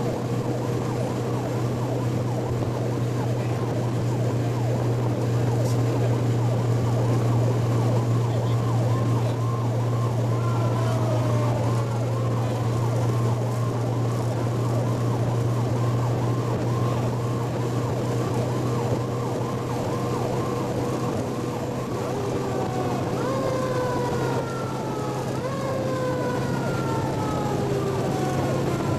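Fire truck responding with its siren sounding, heard from inside the cab over a steady low engine drone. From about two-thirds of the way through, several falling siren tones are heard.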